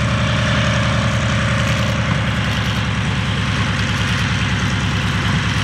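Vought F4U Corsair's Pratt & Whitney R-2800 radial engine running at low power as the fighter taxis, a steady, rapid throb.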